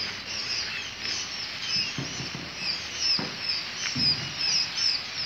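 Dense, continuous chorus of short high peeps from many day-old quail chicks crowded in crates, with a few low knocks about two, three and four seconds in.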